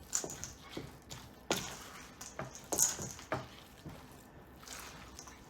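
Irregular light clicks and knocks, with a little soft squishing, from handling food and utensils at a kitchen bench.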